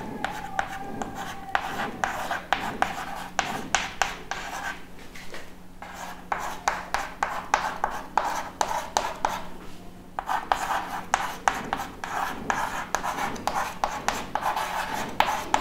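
Chalk writing on a chalkboard: quick scratching strokes and taps of the chalk, in three spells broken by short pauses about five and ten seconds in.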